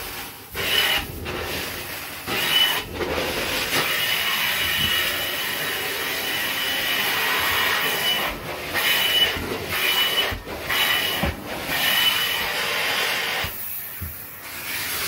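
Hot water extraction stair tool sucking water back out of stair carpet: a steady suction rush and hiss, with a whistling tone when the head is pressed to the pile. It drops out briefly several times between strokes.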